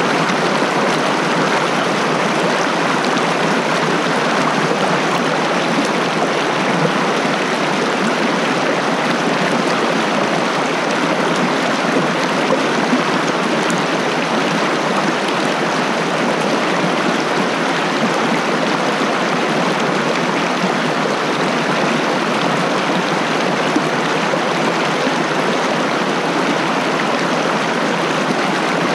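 Mountain stream water rushing and splashing over rocks right at the microphone: a loud, steady rush with no let-up.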